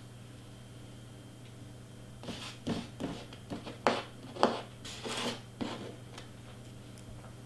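Craft supplies being handled and moved: a cluster of short rustling and scraping noises starting about two seconds in and lasting about three and a half seconds, over a steady low hum.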